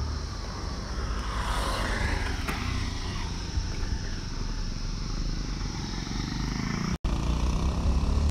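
A vehicle engine running over a steady low rumble, swelling about a second in. The sound drops out for an instant about seven seconds in.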